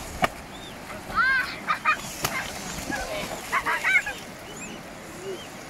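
Mute swans calling: several clusters of short, high-pitched, arched calls, about a second in and again near four seconds, as the adult swan splashes and flaps in the shallows. A sharp knock comes just after the start, with another near the middle.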